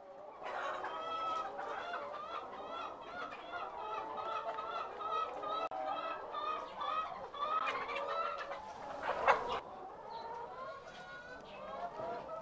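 A flock of laying hens clucking and chattering in a poultry house, many overlapping calls at once. About nine seconds in there is one brief, louder burst of noise.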